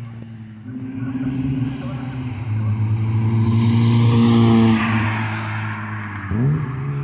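Acura TSX with a Yonaka catback exhaust and PLM header driving past under acceleration. The exhaust note builds and grows louder, is loudest as the car passes about four and a half seconds in, then drops off as it moves away. Near the end the engine revs up again with a rising pitch.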